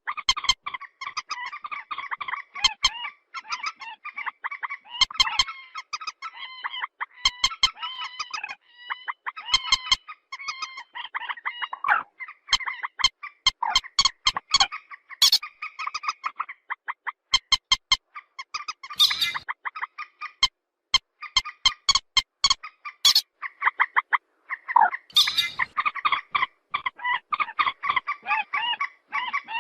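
Recorded calls of a white-breasted waterhen (ruak-ruak): harsh, repeated croaking calls mixed with quick runs of sharp clicking notes, loud and nearly continuous with brief pauses.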